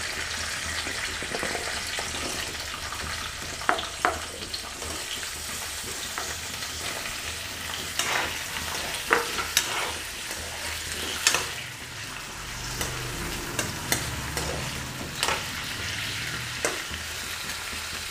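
Cut potato pieces sizzling as they fry in hot oil in a steel kadhai on a high flame. A slotted steel spoon scrapes and clinks against the pan several times as the pieces are stirred.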